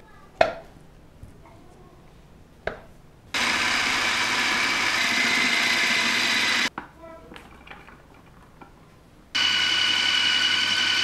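Electric food processor motor running in two runs of about three seconds each, a steady whine with a hum beneath, as it chops boiled potatoes and then boiled chana dal into a coarse paste. A few light knocks come before and between the runs.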